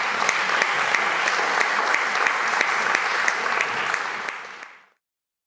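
Audience applauding, fading out and cutting off to silence about five seconds in.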